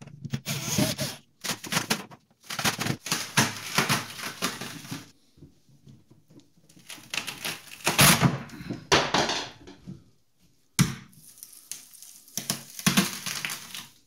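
Plastic top cover of a refrigerator cabinet being pried and torn loose from the expanding foam that glues it down: crackling, crunching and tearing of foam and plastic in several irregular bursts, with a couple of sharp cracks past the middle.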